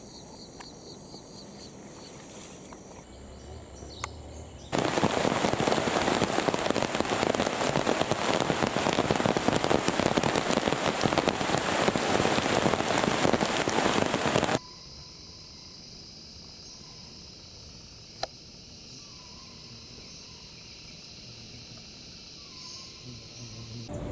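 A loud, even rushing noise starts suddenly about five seconds in and stops abruptly about ten seconds later. Before and after it is quieter outdoor background with a steady high hum.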